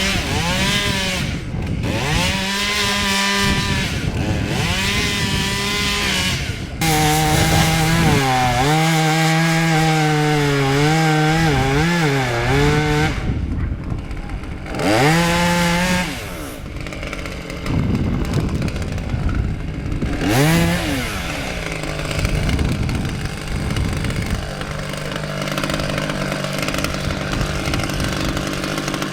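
Husqvarna T 540 XP two-stroke top-handle chainsaw revving and cutting wood. Its pitch sags and wavers while the chain is in the cut and drops back between cuts, with quick rev-ups about 15 and 20 seconds in.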